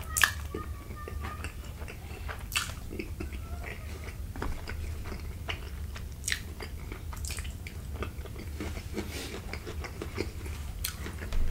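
Close-miked mouth sounds of eating creamy fettuccine alfredo: wet chewing and slurping of noodles, with a few sharp clicks and taps, the loudest about a quarter second in, and a metal fork working in the plate. A steady low hum runs underneath.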